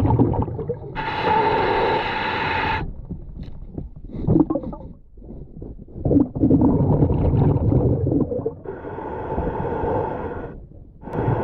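Underwater audio of a scuba diver breathing through a regulator: three long, buzzing, pitched inhalations, with low rumbling and gurgling bubbles between them.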